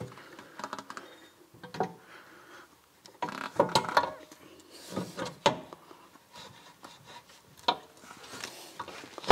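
Scattered knocks, clanks and rubbing of metal parts as a BMW Z3 rear suspension arm, carrying the wheel hub and brake backing plate, is handled and pushed into place against the rear axle.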